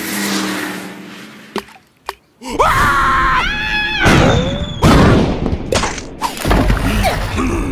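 Cartoon characters' wordless cries and yells, gliding up and down in pitch, start about two and a half seconds in. Before them comes a swelling rush of noise that fades away.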